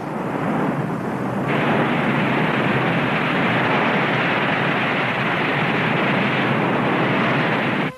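Volcanic eruption, lava fountaining and ash blasting: a dense, steady rush of noise that grows fuller about a second and a half in and cuts off suddenly at the end.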